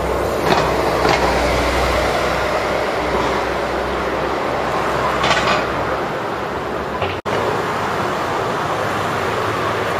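City street traffic: a steady wash of passing cars and buses, with a low engine rumble that fades out about six seconds in. The sound drops out for a split second about seven seconds in, where the recording cuts.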